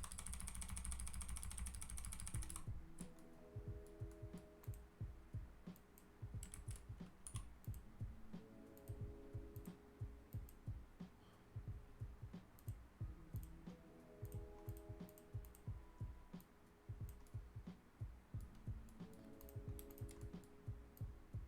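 Computer keyboard keys tapped irregularly, several a second, as shortcuts are entered. There is a dense rattle of keys for the first couple of seconds.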